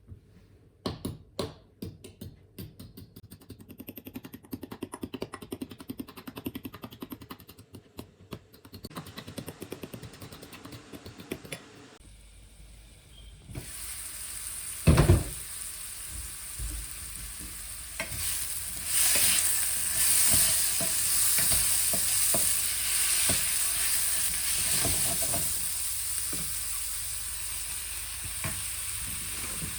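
Fast, even chopping of a knife on a cutting board. After a short break about 12 seconds in, food sizzles as it fries in a pan, with stirring scrapes and clatter and a loud knock about 15 seconds in.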